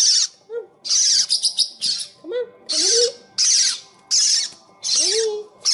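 Parrotlets giving harsh, hissing squawks in quick succession, about one every three-quarters of a second, with a few softer rising-and-falling notes between.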